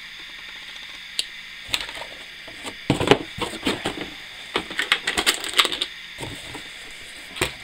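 Hands handling packaging and rummaging in a cardboard box: a run of irregular clicks, taps and rustles, densest in the middle.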